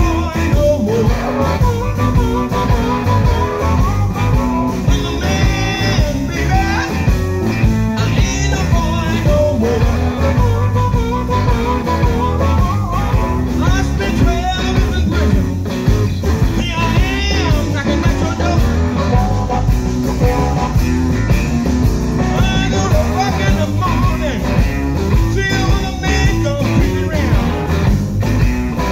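Live electric blues band playing: electric guitar, bass guitar and drums, with a harmonica lead played into the vocal microphone.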